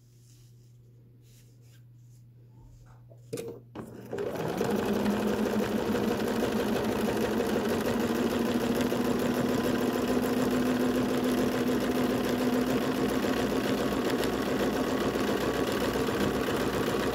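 Sewing machine running fast and steadily, free-motion quilting through layered fabric with a spring-loaded darning foot. It starts about four seconds in, after a quiet stretch and a couple of short clicks.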